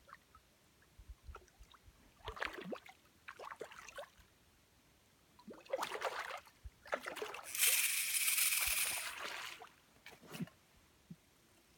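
A hooked rainbow trout thrashing at the water's surface, splashing in several bursts; the longest and loudest lasts nearly two seconds, about three-quarters of the way through.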